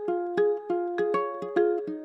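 Background music: a light plucked-string melody of quick, short notes, about four or five a second.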